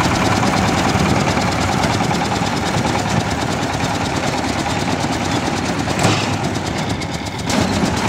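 Small tractor's engine running steadily while the round baler behind it works and drops a finished straw bale, with one sharp clunk about six seconds in.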